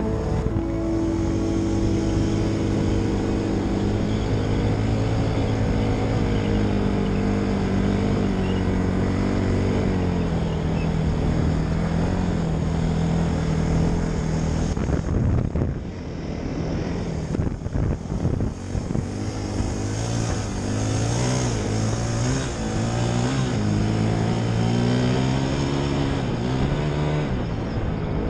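Hisun 450cc ATV's single-cylinder engine running under way, its pitch rising and falling with the throttle. About halfway through it briefly drops off and comes back rougher and uneven.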